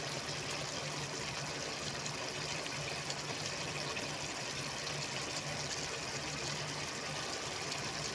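A pan of beef offal in tomato sauce simmering on the stove, bubbling and sizzling steadily with a dense fine crackle, over a faint low hum.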